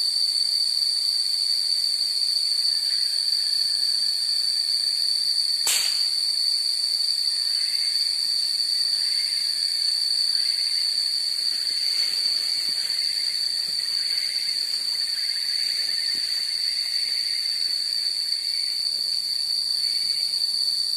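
Loud, steady insect drone in a forest: one continuous high-pitched tone that never wavers, with a hiss above it. A single sharp click about six seconds in, and faint wavering calls underneath through the middle.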